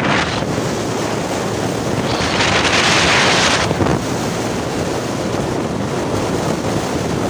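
Wind buffeting the microphone from a moving vehicle, a steady rushing noise with road rumble underneath. About two seconds in, a louder, hissier rush swells for a second and a half, then falls back.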